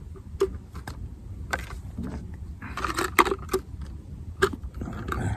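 Irregular clicks and clatters of small hard fishing-tackle items being handled while a carp rig and PVA bait bag are put together, over a steady low background rumble.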